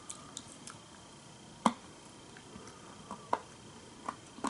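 A few short, sharp clicks and taps from eating the jelly candy with a spoon, the loudest about a second and a half in.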